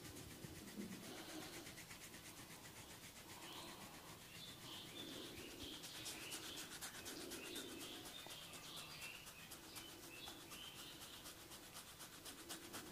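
Fingers scratching and rubbing through hair on the scalp during a head massage: a faint rasping, with a run of quick, even scratching strokes in the second half.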